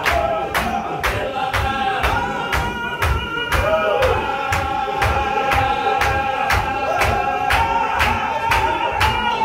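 A male congregation chanting a Qadiri Sufi zikr in chorus, with a lead voice holding long, steady notes over it. A sharp, even beat drives it at about two and a half beats a second.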